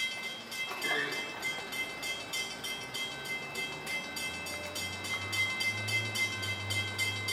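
Railroad grade-crossing bell ringing in a fast, steady rhythm, the warning that a train is approaching. A low hum joins about four seconds in.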